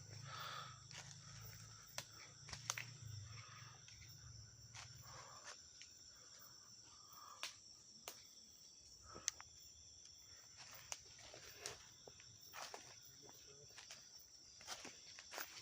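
Night insects chirring steadily and high, with scattered sharp clicks and rustles of footsteps in undergrowth.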